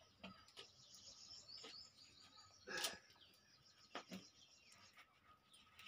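Near silence: faint bird chirps and scattered light clicks, with one louder knock about three seconds in.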